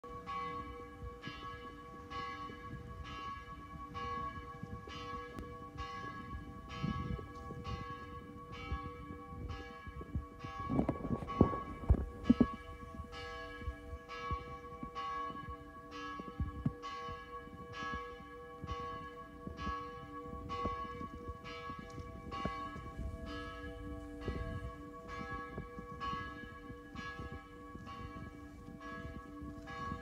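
A single church bell tolling steadily, about three strokes every two seconds, each stroke ringing on into the next. A few loud low thumps come about eleven to twelve seconds in.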